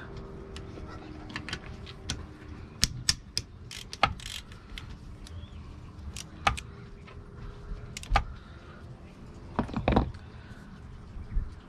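Ratchet wrench with a 13 mm socket and loose metal parts clicking and knocking at irregular intervals as the thermostat cover bolts on an outboard's cylinder head are undone. The loudest knocks come about ten seconds in.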